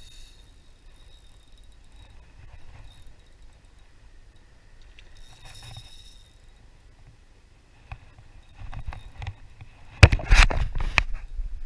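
Daiwa Theory 2004 spinning reel being cranked during a lure retrieve, quiet at first; from about eight seconds in, loud knocks and clatter from handling the rod against the body-worn camera, the loudest about ten seconds in.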